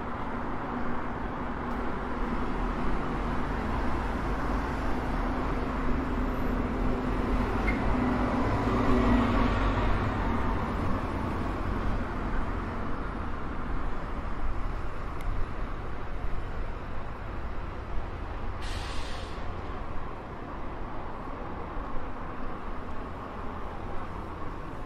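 City road traffic: a steady rumble of vehicles, swelling as an engine passes about eight to ten seconds in, with a short hiss about nineteen seconds in.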